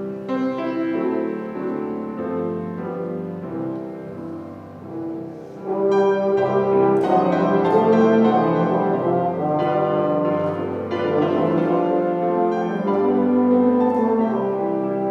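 Instrumental keyboard music playing held chords, growing louder about six seconds in.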